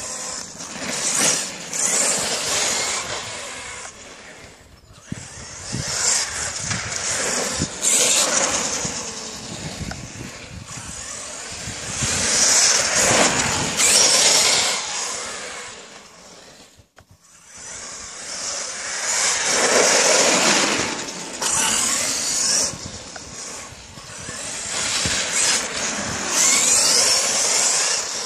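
HPI Savage Flux XL brushless electric RC monster truck driven in repeated fast runs on wet asphalt. Its motor and tyres make loud hissing surges that swell and fade as it speeds up and slows, with a short lull about two-thirds of the way through.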